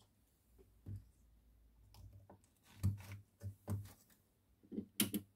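Small parts and test leads handled on a workbench: a series of soft knocks and light clicks, with the sharpest click about five seconds in.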